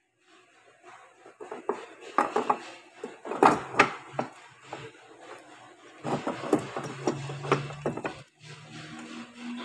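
Steel gears and shafts clinking, knocking and scraping against each other and the aluminium case as the gear set of a Toyota RAV4 CVT transmission is fitted by hand. The two sharpest knocks come about three and a half seconds in, and a quicker run of clinks about six seconds in.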